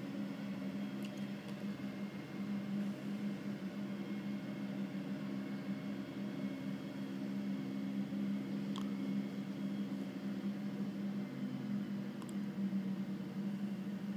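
Diesel engines of a tipper lorry and an asphalt paver running steadily, a constant pitched drone, while the lorry's body is raised hydraulically to tip asphalt into the paver's hopper. A couple of faint clicks sound over it.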